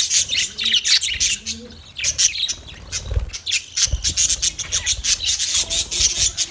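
Parrots chirping in a dense, rapid, overlapping chatter with occasional squawks, pausing briefly about one and a half seconds in. A couple of low thumps sound around the middle.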